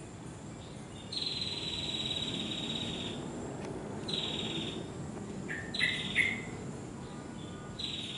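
Birds and insects calling: several buzzy calls one to two seconds long, each dropping slightly in pitch, with two quick sliding chirps midway and a faint steady high insect tone underneath.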